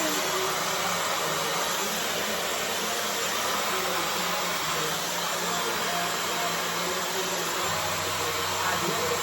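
Dyson hair dryer blowing steadily, a continuous even rush of air. A lower hum joins in near the end.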